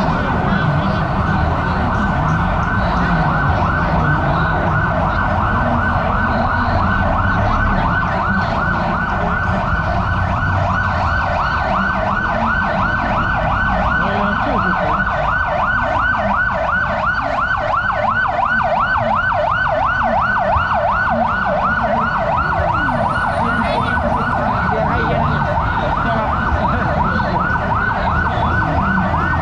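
Electronic emergency-vehicle siren on a fast yelp, a quick rising sweep repeated several times a second without a break, over low street traffic noise.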